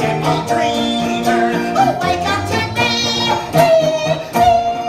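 Lively live stage-show music with singing, the voice or melody holding long notes over the band, a high note held from near the end.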